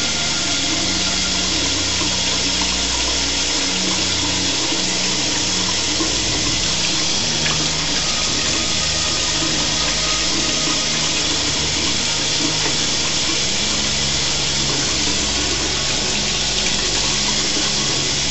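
Steady hiss of running water, unchanging throughout.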